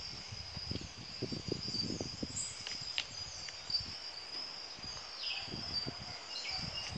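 Steady high-pitched insect trill, crickets or similar, with faint irregular low knocks beneath it.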